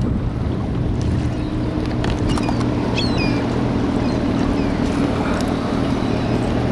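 Boat motor running steadily at low speed, a continuous low hum, with a few short high squeaks about two to three seconds in.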